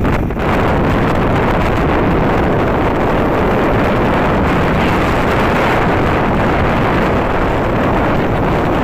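Steady wind rush and road noise from riding a motorcycle at speed, the wind loud on the microphone.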